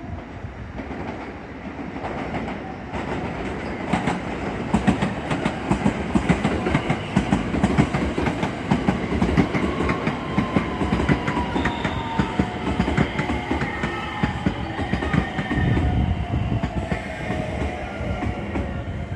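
Electric train moving along the platform track, its wheels clattering over rail joints and points in quick irregular clicks. A motor whine comes in about halfway through and falls steadily in pitch.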